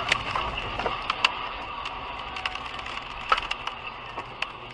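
A car crash and rollover: a rapid scatter of sharp cracks and clattering impacts as debris breaks off and flies, over steady road noise inside the dashcam car. The loudest cracks come about a second in and just past three seconds.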